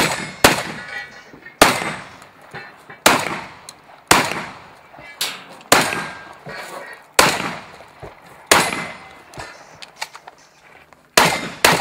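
Shotgun firing a string of about ten shots at uneven spacing, mostly a second or so apart, with two pairs of quick shots, one at the start and one near the end. Each blast is followed by a short ringing decay.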